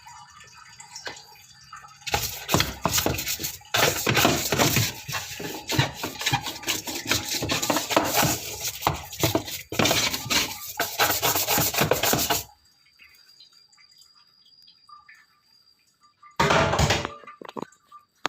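Loud, irregular clattering and rattling with water sounds while a washing machine is being cleaned, lasting about ten seconds, then a brief burst of the same near the end.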